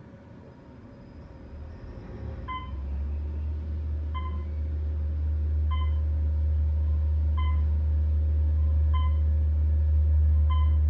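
Otis Series 1 traction elevator's hoist motor starting up and running: a low hum that sets in about two seconds in and grows steadily louder as the car gains speed, heard from inside the cab. A short electronic beep sounds about every second and a half over it.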